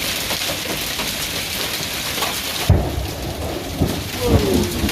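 Hail mixed with rain pelting down in a dense, steady hiss. About two and a half seconds in, the hiss cuts off sharply and a run of heavy, low thuds follows.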